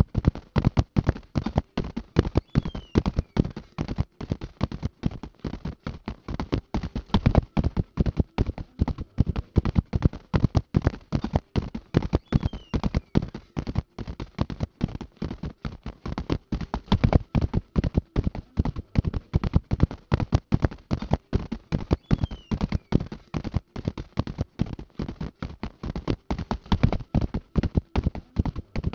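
Horses' hooves galloping on turf, a fast, steady run of hoofbeats that keeps an even rhythm throughout, the pattern repeating about every ten seconds.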